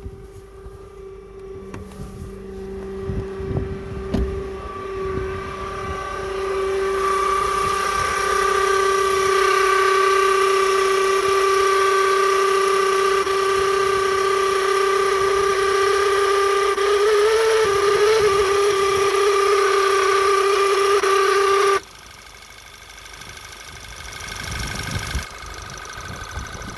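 A loud, steady squeal at one held pitch from a vehicle, growing louder a few seconds in and cutting off suddenly about 22 seconds in, leaving an engine running more quietly.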